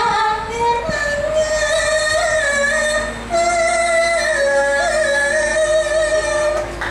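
A high voice singing long, wavering held notes with small melodic turns into a microphone through a PA, with two steady low backing notes coming in partway through.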